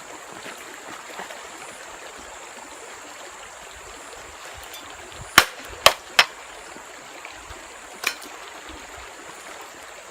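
A forest stream running steadily, with four sharp knocks in the middle: three in quick succession, then one more about two seconds later.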